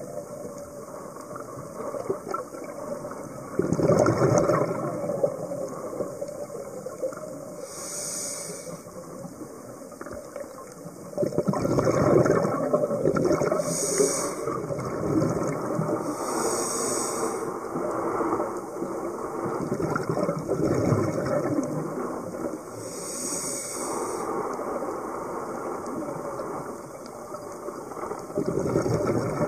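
Scuba diver's breathing through a regulator, recorded underwater. Inhalations hiss through the demand valve every several seconds, and exhaled bubbles rush and rumble in longer, louder surges.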